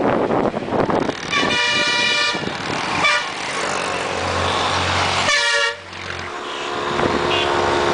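Vehicle horns honking repeatedly over the running noise of a moving motorbike in street traffic: a long honk about a second and a half in, a short one around three seconds, another about five and a half seconds in, and fainter ones near the end. A low drone from about four to six seconds comes as a bus passes close alongside.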